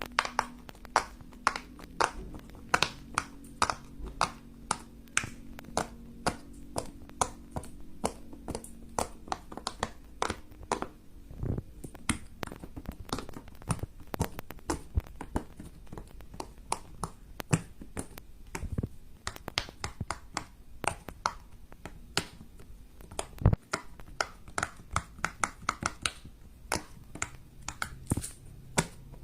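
Fidget toys being pressed and clicked by hand: a long, irregular run of sharp clicks and pops, several a second.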